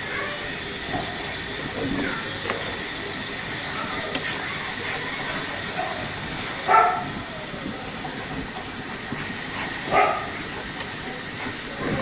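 Masala paste sizzling in hot oil in a frying pan as it is stirred and cooked down until the oil separates. There is a steady hiss, with two short louder sounds about seven and ten seconds in.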